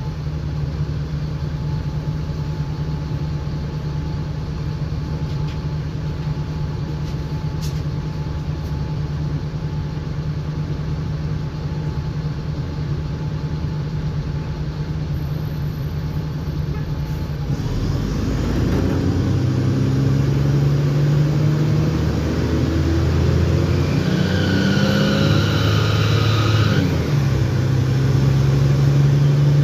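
Mercedes-Benz O-500M bus's diesel engine with Voith automatic gearbox, running at a steady idle, then about 18 seconds in growing louder as the bus pulls away, the engine note rising and dropping in steps through the gears. A brief high whine sounds over it near the end.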